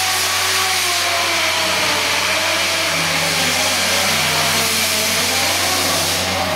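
Intermac Master Stone 4000 CNC stone-working machine running, its water-cooled spindle tool cutting into a stone slab: a loud, steady hiss of spray and grinding over several motor tones that shift a little in pitch. The hiss eases slightly near the end.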